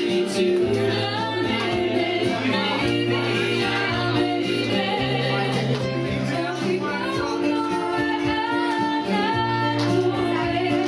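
A woman singing live, accompanied by an acoustic guitar, with held low notes underneath.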